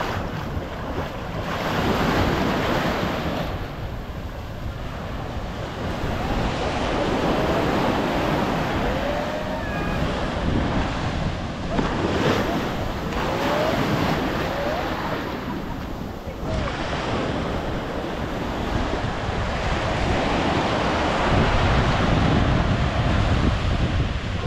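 Ocean surf breaking and washing ashore, surging and easing every few seconds, with wind buffeting the microphone.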